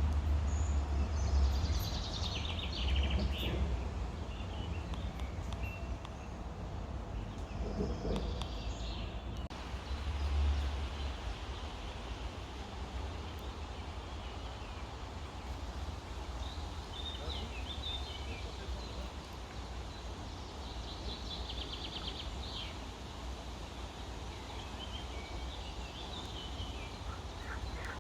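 Birds chirping and trilling at intervals over a steady outdoor noise, with low wind rumble buffeting the microphone.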